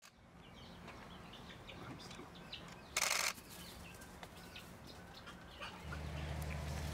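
Birds chirping faintly, with one loud, brief rush of noise about three seconds in. A low steady hum starts near the end.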